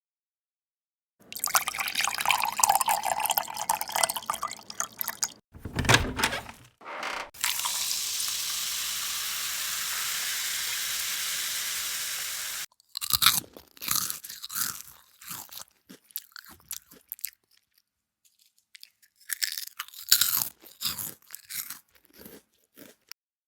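A string of crunching sound effects. Partway through comes a low thump, then about five seconds of steady hiss like running water that cuts off suddenly. Scattered clicks and crunches follow, a pause, and more crunching near the end.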